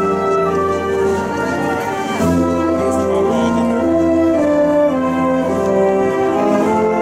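Slow orchestral music led by brass, with sustained chords that change pitch every second or so.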